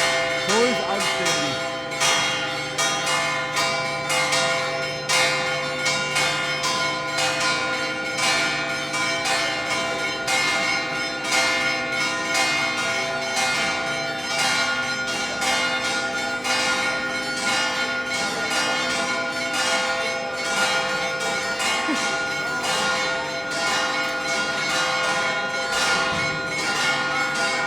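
Several church bells pealing, struck over and over in quick succession, their tones overlapping and ringing on.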